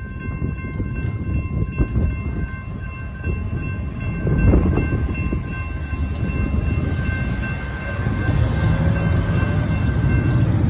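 Railroad crossing warning bell ringing steadily while the crossing gate arms lift, over a low rumble. The bell stops near the end as road traffic starts to move across the tracks.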